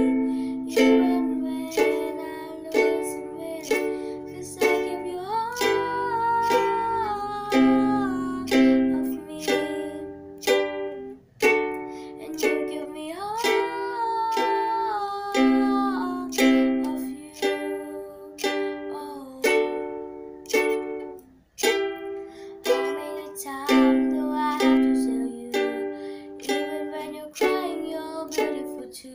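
A girl singing while strumming chords on a ukulele, the strums coming about once a second under her voice.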